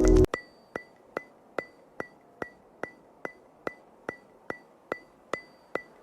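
Background music cuts off just after the start, followed by steady clock-like ticking, about two and a half sharp ticks a second, each with a short bright ring.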